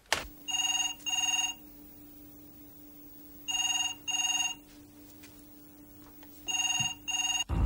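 Telephone ringing in the British double-ring pattern: three pairs of short rings, each pair about three seconds after the one before, as a transferred call waits to be answered.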